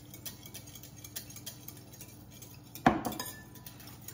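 A small whisk beating eggs and milk in a glass mixing bowl, ticking and scraping against the glass in quick light strokes. About three seconds in there is one louder glassy knock.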